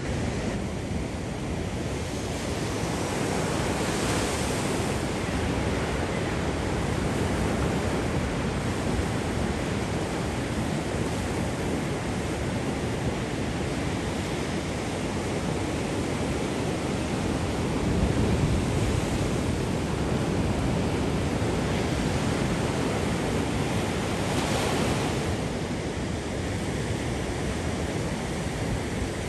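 Steady rushing wash of ocean surf mixed with wind, rising and easing slightly now and then.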